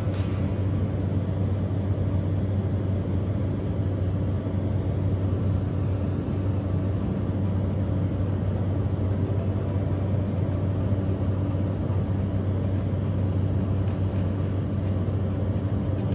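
Steady drone of a tour aircraft's engine and airframe heard from inside the aircraft, an even low hum that does not change.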